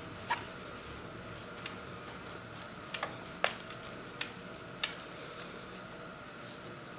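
Quiet handling sounds of hand-sewing on a stuffed fabric toy: about half a dozen small, sharp clicks and taps at irregular intervals as needle and thread are worked and a knot is tied. Under them runs a steady faint hum.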